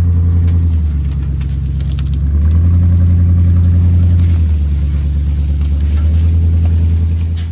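A combine harvester's diesel engine running hard close by, with a steady low drone. It grows louder about two and a half seconds in and eases back about two seconds later.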